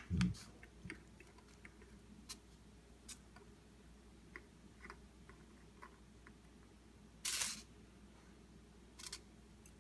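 Faint, scattered small clicks and ticks, with one short hissing burst a little past seven seconds in and a pair of clicks about nine seconds in.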